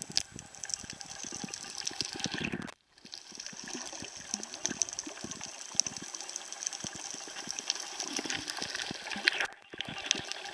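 Water swirling and sloshing as picked up by an underwater camera while snorkeling, with many small crackling clicks throughout. The sound drops out briefly twice, once near 3 s and once just before 10 s.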